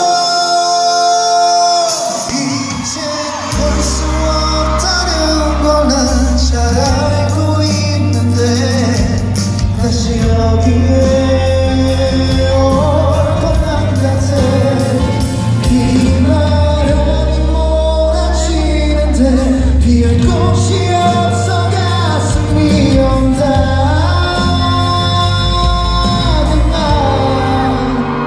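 Live pop music in a concert hall: a voice singing over band backing. A bass line comes in about three seconds in.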